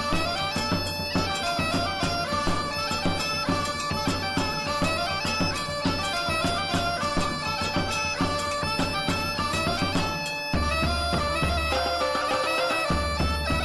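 Bagpipe music: a steady drone held under a fast-moving chanter melody. About ten seconds in the music briefly dips and a deep low note comes in beneath it.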